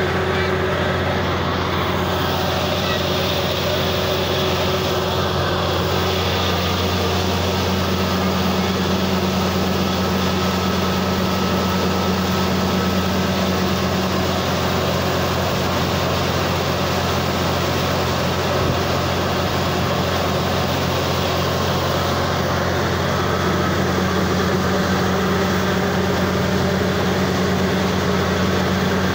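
Truck-mounted rotary drilling rig running steadily while it drills: a loud, even engine drone with a strong low hum.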